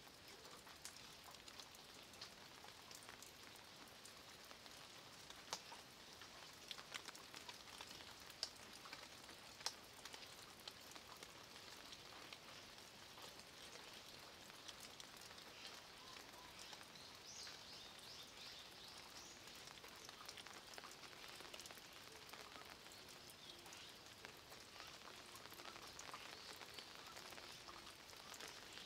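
Faint light rain falling on a stone wall and leaves: a soft, steady patter with scattered sharper drip ticks, a few louder ones in the first ten seconds.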